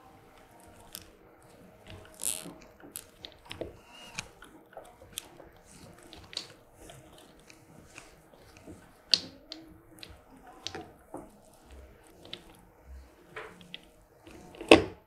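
Hands handling a plastic PoE extender, zip ties and cable while tying the extender to a weight. Scattered small clicks, crinkles and rustles come throughout, with a sharper click just before the end.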